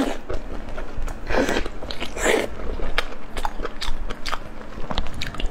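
Close-miked eating sounds of braised pork sausage being bitten and chewed: rapid wet mouth clicks, with two longer, louder chews about one and a half and two and a half seconds in.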